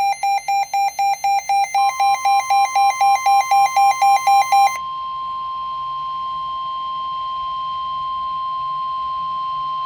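NOAA Weather Radio warning alarm tone: a steady, high single tone that starts about two seconds in, heard at first under a rapid electronic beeping of about three or four beeps a second. The beeping stops about five seconds in and the steady tone holds on alone. It is the tone that signals an emergency weather alert broadcast is coming.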